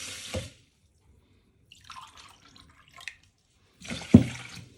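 Water from a tap running and dripping in short bursts, as water is measured into a bowl, with a knock a little before the end.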